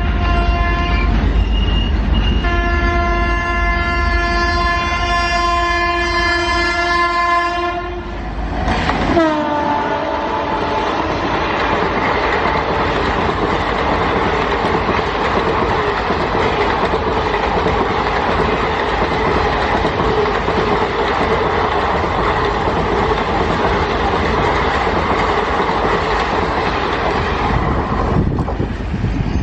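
WAP-7 electric locomotive horn sounding in short honks and then one long blast as the train passes at about 110 km/h. About nine seconds in, the horn's pitch drops as the locomotive goes by. Then the coaches rush past in a steady loud noise for some twenty seconds, easing off near the end.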